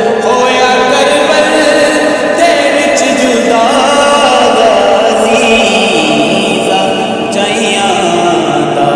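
A crowd of male mourners chanting together without instruments in a Shia devotional mourning chant for Imam Hussain.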